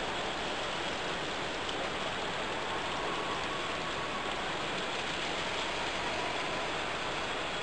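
Steady background hubbub of a crowded model railway exhibition hall: an even wash of distant crowd noise and layout machinery, with no single sound standing out.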